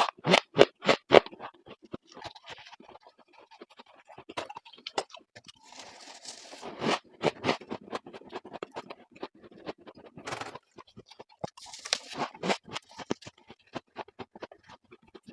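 Refrigerator frost ice being bitten and chewed: a quick run of crunching bites in the first second or so, then scattered crunches and scraping.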